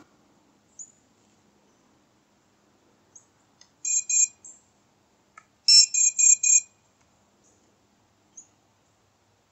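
High-pitched electronic beeps: a short run of beeps about four seconds in, then four quick beeps about two seconds later.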